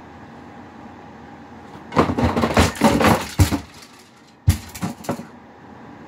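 Objects crashing and clattering off a shelf, including a Simplex wall clock falling, its glass face cracking. First a dense run of crashes for about a second and a half, then one sharp loud hit about four and a half seconds in, followed by a couple of smaller knocks.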